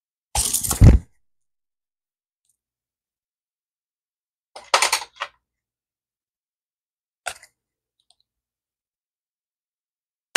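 Hands fumbling with a small cosmetic jar that will not open, close to a clip-on microphone: a loud rub with a low thump in the first second, a short clatter of clicks around five seconds in, and one faint click near seven seconds.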